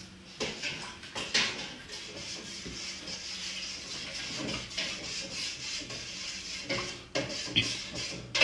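A spoon stirring curry in a stainless steel stockpot, with a few light knocks and scrapes against the pot.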